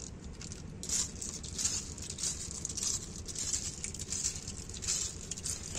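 Snail shells clattering and rustling as a hand rakes through a heap of snails, in irregular bursts one or two times a second, over a low steady background noise.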